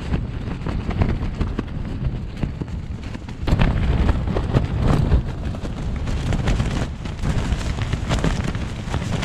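Strong wind battering a tent: the fabric flapping and snapping irregularly over a heavy rumble of wind on the microphone, growing louder about three and a half seconds in.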